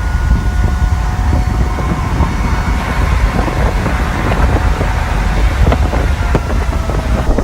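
Loud rumbling wind with thin, steady siren-like tones above it that slowly sag in pitch, and scattered clicks and knocks.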